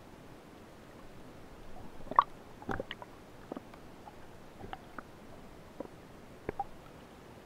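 Underwater recording: a faint steady hiss with a scattering of irregular short clicks and knocks. The loudest knock comes about two seconds in.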